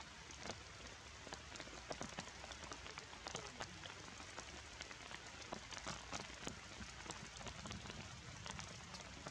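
Rain falling steadily on broad leaves and undergrowth: a constant patter with many separate drops ticking sharply and irregularly close by.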